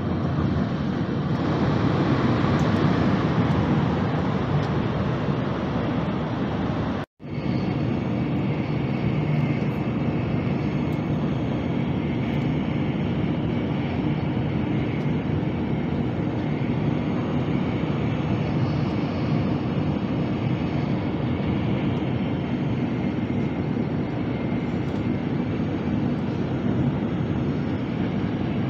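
Steady rumble and rush of a Nozomi Shinkansen bullet train running at high speed, heard inside the passenger cabin. The sound cuts out completely for a split second about seven seconds in, then carries on unchanged.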